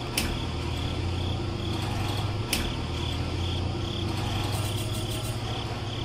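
Crickets chirping, a high pulsed chirp repeating about twice a second, over a low steady hum, with two sharp clicks.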